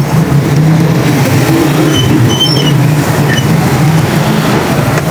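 A steady, loud low motor hum under a noisy wash.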